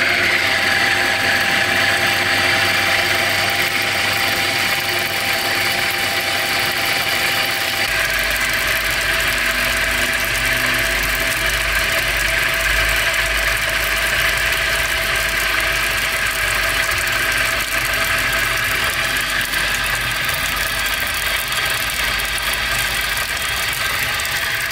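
Homemade electric motor driving a small water pump, running steadily, with water gushing from the pump's outlet pipe. About eight seconds in, the sound shifts and a deep rumble joins it.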